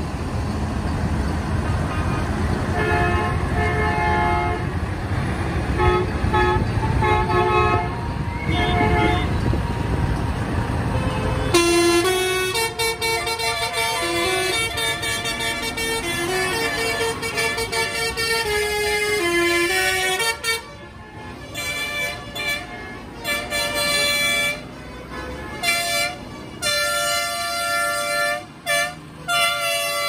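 Tractor engines running while horns toot in repeated short blasts. About eleven seconds in, the rumble gives way to a loud tune of stepped pitched notes, which turns choppy in its last third.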